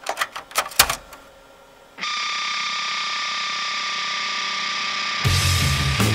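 A floppy disk clicks and rattles into a disk drive over the first second or so. About two seconds in, a steady distorted guitar note starts and is held, and a full rock band with drums and bass comes in about five seconds in.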